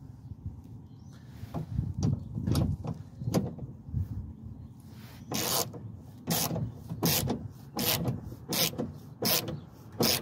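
Ratchet with a 10mm socket tightening the nut that clamps the window glass to the power window regulator, done up only snug so as not to crack the glass. Some handling knocks, then from about halfway a run of about eight short ratcheting strokes.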